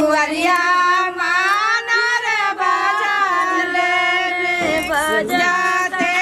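A high-pitched solo singing voice holding long, drawn-out, slightly wavering notes of a melody, with a short break about three-quarters of the way through.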